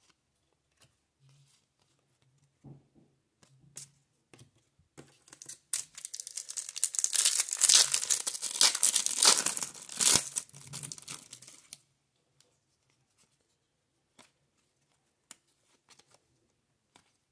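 Baseball card pack's foil wrapper being torn open and crinkled: about six seconds of loud tearing and crackling in the middle, with light clicks and rustles of cards being handled before and after.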